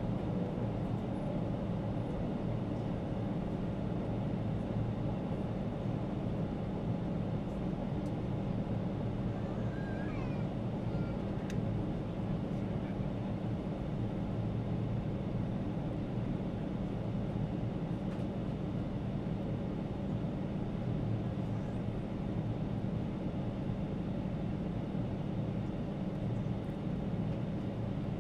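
Steady drone of a Boeing 777-300 airliner in flight, heard inside the passenger cabin: engine and airflow noise, low and even, without change.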